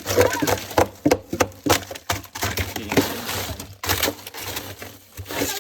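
Frozen food packages and ice in a chest freezer knocking and cracking as they are dug out: a rapid series of sharp knocks, with a stretch of crunching about three seconds in.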